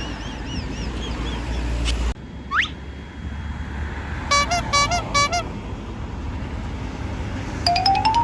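A low vehicle rumble with faint warbling tones, cut off at about two seconds. Then a quick rising whistle, a string of short multi-tone horn toots, and near the end a rising run of horn notes, in the manner of an Indonesian bus 'telolet' musical horn.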